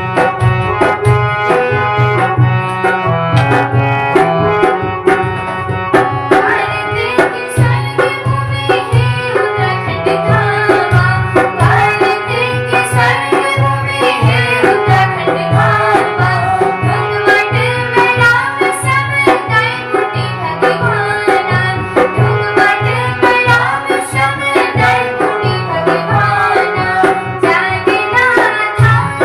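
Devotional folk music: an instrumental interlude of melody instruments over a steady tabla and drum rhythm.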